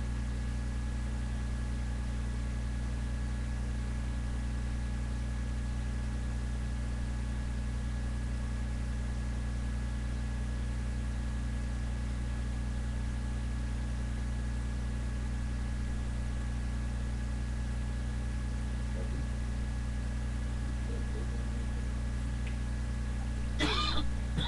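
Steady low electrical hum with a few faint steady whine tones above it. A short burst of noise comes near the end.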